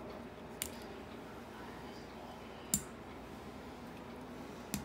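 Three sharp clicks, about two seconds apart, from a pizza cutter being worked against the counter while it cuts rolled dumpling dough into strips, over faint room noise.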